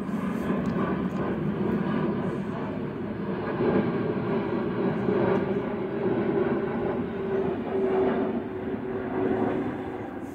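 Twin-engine jet airliner flying over, its engines making a steady rushing noise with a humming drone.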